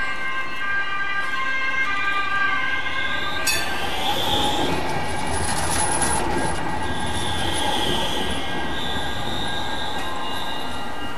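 City tram passing close by on street track: a steady rumble of wheels on rail with a high, wavering squeal from the wheels. Several steady high tones ring in the first few seconds before the passing noise swells.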